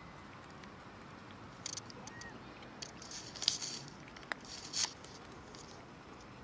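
Cats crunching dry kibble: several short bursts of crisp crunching and clicks in the middle, over a faint steady background.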